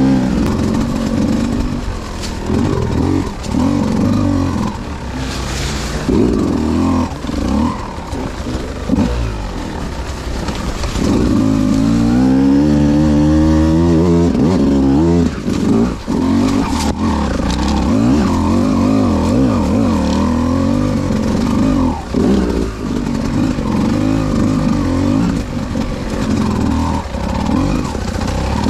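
Beta 200 RR two-stroke dirt bike engine being ridden through technical trail. The revs rise and fall constantly with throttle and clutch, and there is one long climb in revs around the middle. A few sharp knocks sound along the way.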